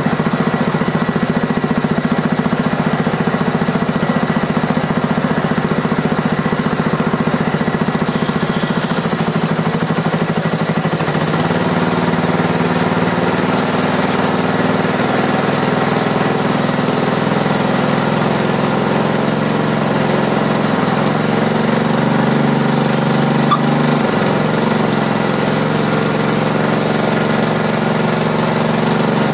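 Small air-cooled single-cylinder petrol engine, a Honda GX-style clone, running steadily; its note dips and shifts slightly about eleven seconds in and again several times after twenty seconds.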